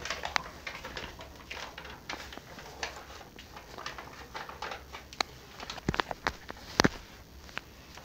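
Scattered clicks, knocks and rustling from people moving about and handling things in a small room, with two sharper knocks about six and seven seconds in.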